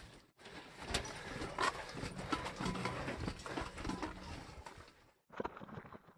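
Footsteps on a trail mixed with knocks, rattles and rustling of carried gear, stopping abruptly twice.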